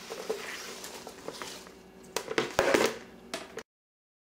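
Chopped romaine lettuce sliding off a plastic cutting board and dropping into a plastic salad spinner basket: a crisp rustling and crunching with a few sharp knocks, loudest a little over two seconds in. The sound cuts off suddenly near the end.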